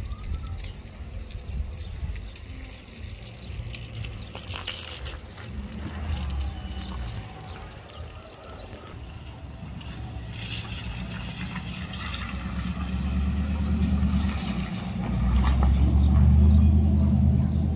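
Low, uneven rumble of a climbing Airbus A320-232's IAE V2500 turbofan engines heard from far below, swelling louder in the second half.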